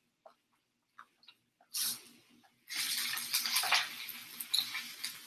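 LA galbi (marinated beef short ribs) sizzling on a hot Cuisinart Griddler Elite grill plate as pieces are turned with tongs: a short sizzle about two seconds in, then a louder, steady crackling sizzle from about halfway that fades near the end. A few light clicks come before it.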